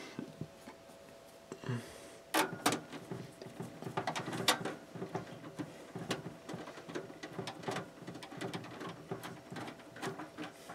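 A Phillips screwdriver driving a screw into the sheet-metal expansion-slot bracket of a desktop computer case. It makes a run of small clicks and ticks, several a second, starting about two seconds in.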